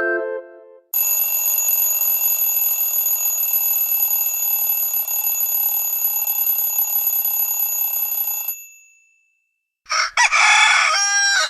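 Android stock alarm tones: the tail of a synth melody, then a continuous mechanical bell ringing steadily for about seven seconds like an old alarm clock (the 'Alarms Classic' tone), and about ten seconds in, a recorded rooster crowing (the 'Alarms Rooster 02' tone).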